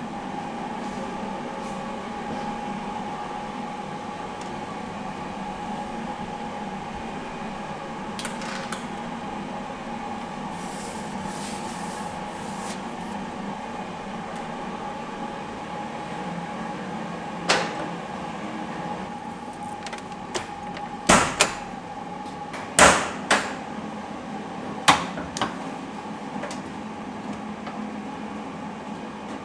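Steady hum with a handful of sharp clicks and knocks in the second half, from hands-on work on the car.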